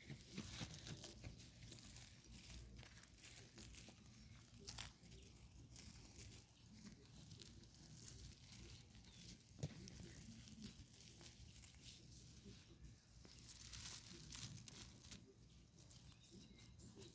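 Faint, irregular rustling and crackling of dry grass being handled, with scattered small clicks.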